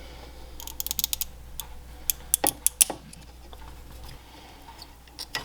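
Sharp clicks and snaps of small plastic parts on a fuel pump hanger assembly being pried apart by hand: a quick run of light clicks about a second in, then a few louder separate snaps a little past two seconds.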